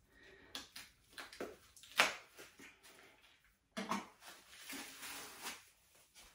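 Paper wrapping on a handbag strap rustling and crinkling as it is pulled off by hand, in short scattered bouts. There is a sharp tap about two seconds in and a longer stretch of rustling near the end.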